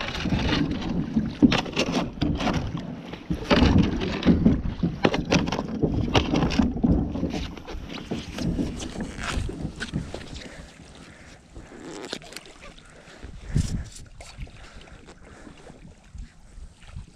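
Kayak paddle strokes in shallow water: splashing with repeated knocks of the paddle against the plastic hull and bottom. The knocks come thick and fast for about the first seven seconds, then grow sparser and quieter.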